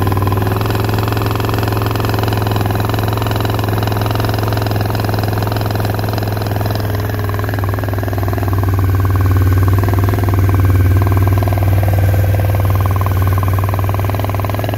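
Suzuki TL1000S's 996 cc V-twin engine running steadily at around 2,500 rpm, swelling slightly about two-thirds of the way through.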